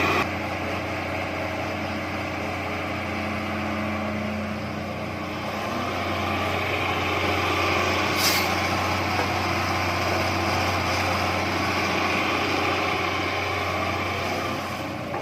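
Heavy diesel engine of construction machinery running steadily, swelling slightly partway through, with a short hiss about eight seconds in and a sharp knock at the very end.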